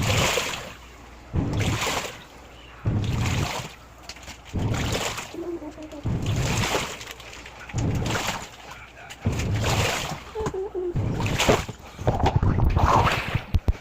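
Washing machine agitating clothes in its wash tub, water sloshing and splashing in surges about every one and a half seconds as the drum's agitator swings back and forth.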